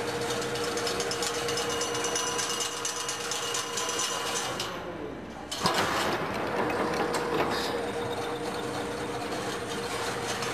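Automatic chain link fence machine running: a continuous fast clatter of gears and mechanisms over a steady hum. The noise dips briefly about five seconds in, then comes back suddenly and louder.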